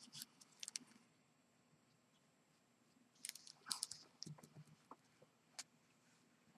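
Faint rustling and small taps of punched cardstock pieces being handled and pressed together, in a few short clusters with a cluster about three seconds in.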